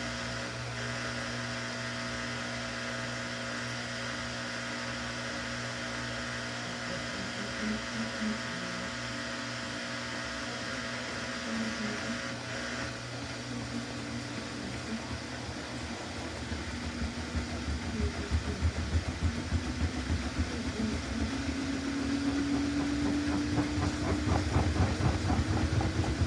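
Samsung front-load washing machine starting a spin: a steady hum at first, then from about halfway the drum speeds up. Its motor whine rises steadily in pitch over the last ten seconds, with a rhythmic pulsing swish as the load turns.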